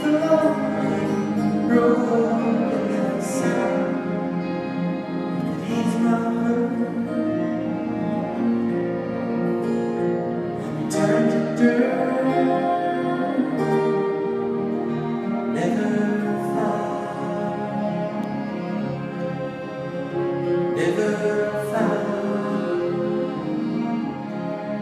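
Live folk band playing: acoustic guitars, electric guitar, accordion and cello together.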